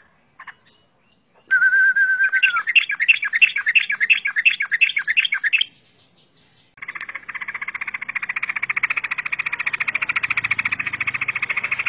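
Yellow-vented bulbul (trucukan) singing: a held whistled note, then a fast run of repeated chattering notes about four a second, stopping about halfway. After a short pause, a steady, very fast rattling trill, frog-like, starts and runs on.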